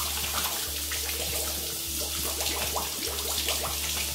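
Kitchen faucet running into a sink, with water splashing as hands are rinsed under the stream.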